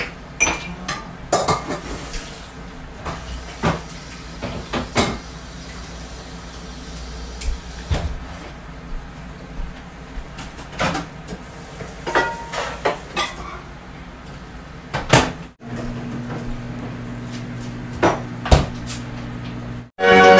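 Kitchen clatter: irregular clinks and knocks of dishes, utensils and cupboard doors being handled at a counter and sink. After a brief dropout about three-quarters in, a steady low hum sits under the last few knocks.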